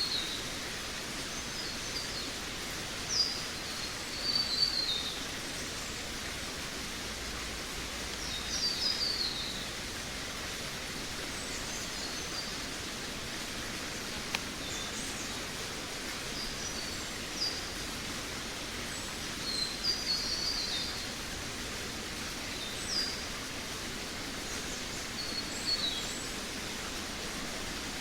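Songbirds singing in a forest: short, high, falling chirps and trills every few seconds over a steady hiss of background forest ambience, with one sharp click about fourteen seconds in.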